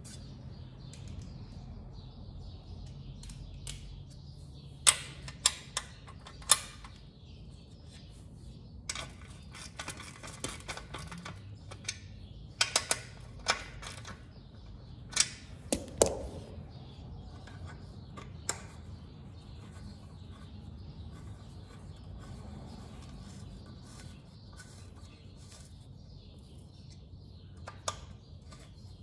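Sharp metallic clicks and knocks, with a run of rapid ratchet clicking, as a 12mm socket wrench tightens the bolts holding a metal skid plate. A steady low hum runs underneath.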